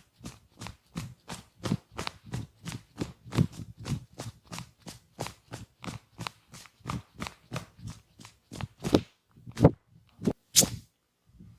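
Rhythmic hand slaps of a percussion massage, hands striking the body about three to four times a second, ending with three louder, slower slaps.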